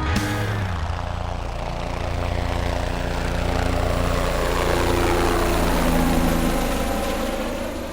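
An engine running with a steady low drone, growing louder through the middle and fading near the end.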